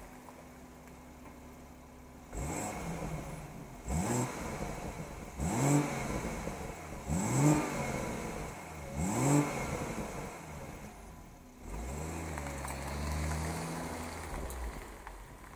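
BMW M140i's turbocharged 3.0-litre straight-six idling, then revved in four quick blips about a second and a half apart, each rising sharply and falling back. Near the end a steadier engine note holds for a couple of seconds, then fades.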